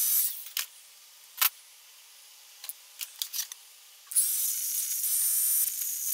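Small clicks and knocks of a rotary tool being handled while a cut-off wheel is fitted to its tip. A high, steady whine stops just after the start and comes back about four seconds in.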